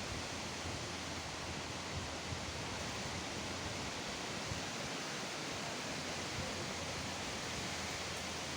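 Strong wind blowing in a steady, unbroken rush.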